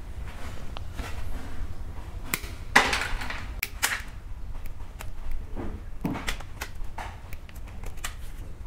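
Hands working electrical wires and a screwdriver: scattered clicks, scrapes and rustles as the wires are twisted together, with the loudest scrape about three seconds in and a quick run of clicks near the end, over a steady low hum.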